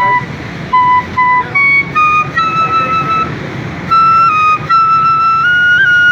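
Bansri (bamboo flute) playing a slow naat melody: single held notes that step up and down, rising to a long held note in the second half.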